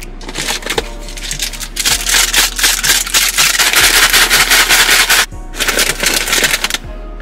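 Dry crushed instant noodles crackling and rattling in their plastic snack packet as it is crushed and shaken, in one long stretch of about five seconds and a shorter one after a brief break. Background music plays underneath.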